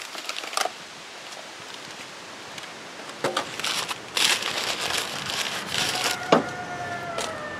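Brown paper packing crinkling and rustling as a new Briggs & Stratton stator is unwrapped by hand, with a few sharp handling clicks. The loudest crinkling comes about four seconds in.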